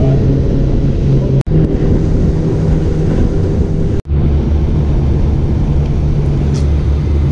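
Suzuki outboard motor running steadily as the aluminium boat travels at speed, a constant low engine hum with wind and water noise over it. The sound breaks off for an instant twice, and after the second break, about four seconds in, the engine note is lower.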